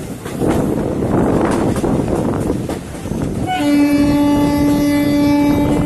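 Rumble and rattle of a moving passenger train, heard from an open coach doorway. About three and a half seconds in, a locomotive horn starts one long, steady blast that carries on to the end.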